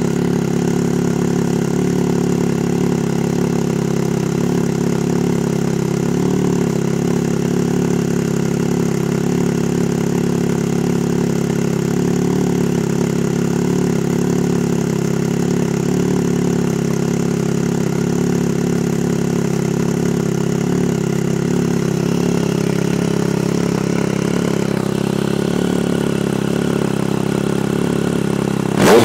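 2010 Triumph Speed Triple's inline three-cylinder engine idling steadily through a Competition Werkes aftermarket exhaust, heard close to the muffler outlet. The throttle is blipped right at the very end.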